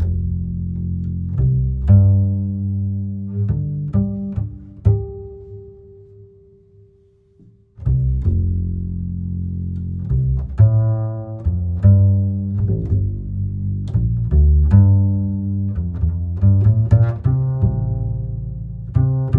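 Background music of plucked low string notes in a steady bass line. It fades out about five seconds in and starts again about eight seconds in.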